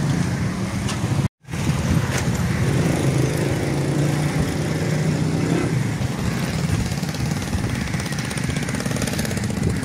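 A small engine running steadily with a low, even hum. It drops out completely for a split second about a second in.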